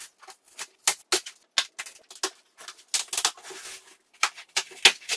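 Accessories and packaging being handled during unboxing: a string of irregular sharp clicks and light rustles.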